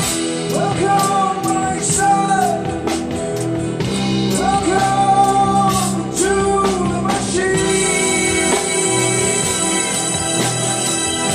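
Live rock band playing, with a man singing the lead vocal over drums and bass. His sung notes slide up into long held pitches.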